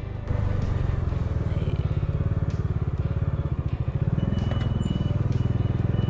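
Bajaj Dominar 400's single-cylinder engine running at low revs in a fast, even low pulse as the motorcycle rolls along slowly. Its note rises briefly about four seconds in.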